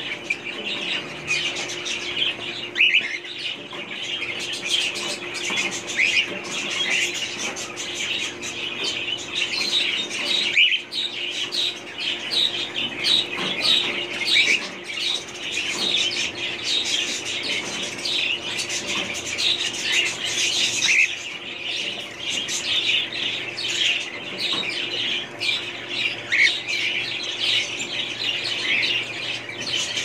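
A cage full of young quail chicks chirping continuously, many short high peeps overlapping with no pause.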